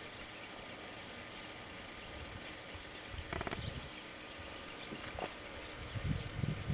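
An insect chirps steadily outdoors, about three short high chirps a second. A few faint clicks come midway, and there are low bumps near the end.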